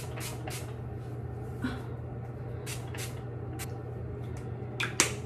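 Spray bottle of hair oil misting onto hair: about ten short hissing sprays, a few near the start and a quick run over the second half, the loudest near the end. A steady low hum runs underneath.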